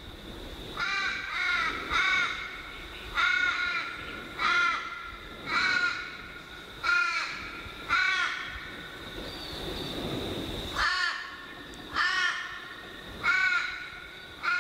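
A crow cawing again and again, about a dozen short caws roughly one a second, with a pause of a couple of seconds past the middle. A faint steady high tone sits underneath.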